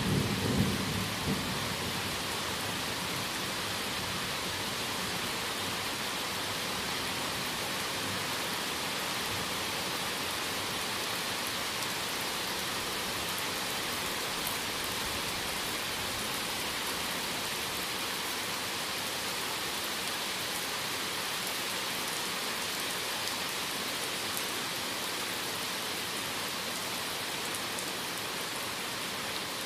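Heavy thunderstorm rain falling steadily, an even hiss. In the first second or two the tail of a thunder rumble dies away.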